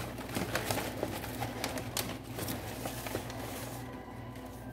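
Paper wrapping crinkling and rustling in irregular bursts as it is pulled back from a potted orchid in a cardboard box, with a steady low hum underneath.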